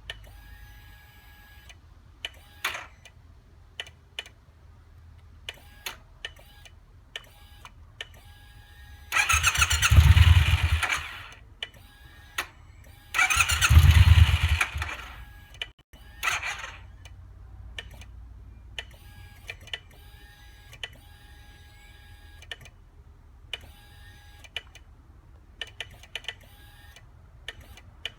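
Triumph T120 motorcycle starting system clicking again and again as the starter switch is partly pressed and the clutch lever is worked. Twice, about two seconds each, the starter motor cranks the engine without it firing. This is a no-start fault that the owner suspects lies in the clutch or starter switch sensor.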